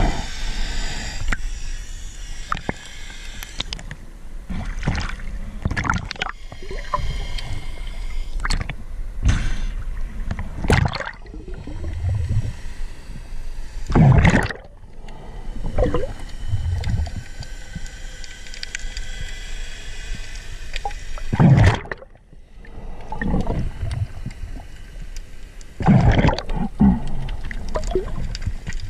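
Underwater noise picked up by a camera in its waterproof housing as a diver swims: water gurgling and rushing past, with scattered clicks and a few louder surges.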